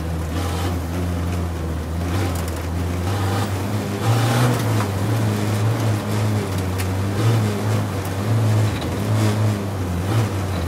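Land Rover Defender Td5 race car's five-cylinder turbodiesel engine pulling hard, heard from inside the cabin, its note rising a little about four seconds in. Scattered knocks of gravel and stones hitting the underbody.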